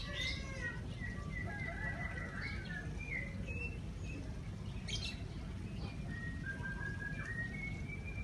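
Birds singing: drawn-out whistled notes that step up and down in pitch, with short sharp chirps at the start and about five seconds in. Under them runs a steady low rumble of the city in the morning.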